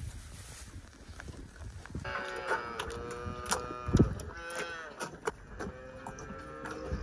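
Dairy calves mooing: a quiet stretch, then from about two seconds in a string of high, drawn-out calf calls, with a few short knocks among them.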